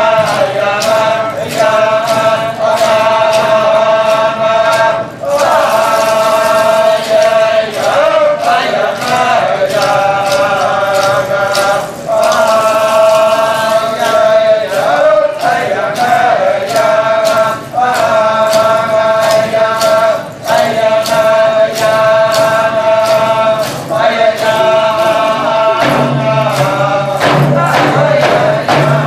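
A group of singers chanting in unison in repeated phrases, with a steady beat on Alaska Native frame drums, thin round hide drums struck with a stick.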